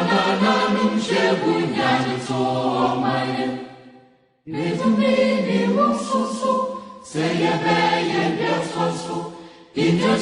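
A group of voices singing together, in phrases with a short break about four seconds in.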